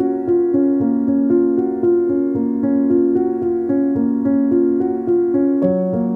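Background music played on a piano-like keyboard, a continuous stream of notes over held chords.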